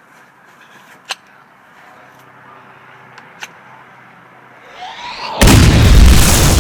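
Low hum with two faint clicks, then a short rising sweep and, about five seconds in, a sudden loud blast that keeps rumbling on.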